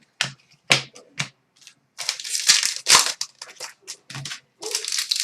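Plastic-foil trading-card pack wrapper being crinkled and torn open by hand: a run of short crackling rustles with a denser crinkling stretch about two seconds in.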